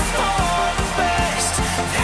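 Background pop song: a voice singing a melody over a steady beat.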